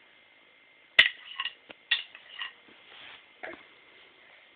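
Drumsticks tapping and clacking irregularly as a small child swings them: one sharp crack about a second in, then a handful of softer taps.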